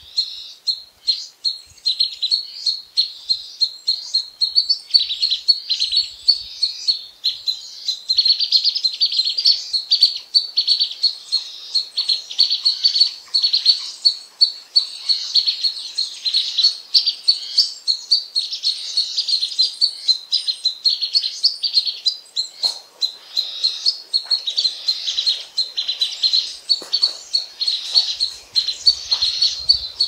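A dense chorus of songbirds chirping and singing, with rapid high-pitched calls overlapping without pause.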